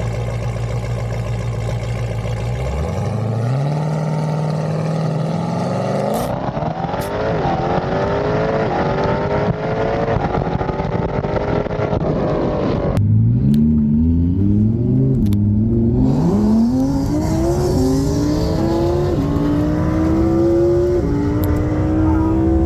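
Car engine at a steady hum, then accelerating hard through the gears: the pitch climbs and drops sharply at each upshift. This happens twice, the second run starting about halfway through.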